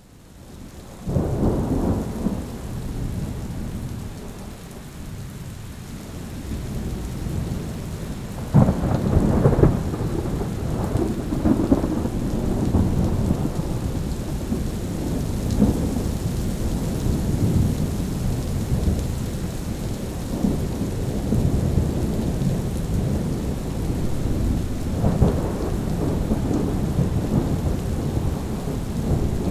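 Thunder rolling over steady rain: a loud clap about a second in, the loudest peals around nine seconds and again near twenty-five seconds, with low rumbling between.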